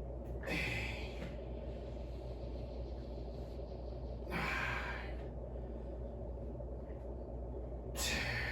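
A man's heavy, forceful breaths under the strain of a set of kettlebell lifts: three sharp exhalations, about four seconds apart.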